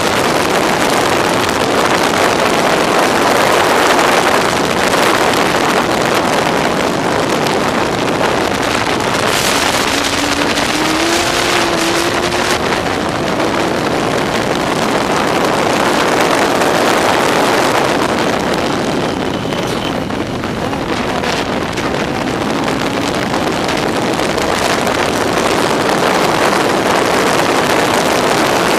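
Yamaha R1 inline-four motorcycle engine in a Locost race car running hard at racing speed, mixed with a heavy rush of wind on the microphone.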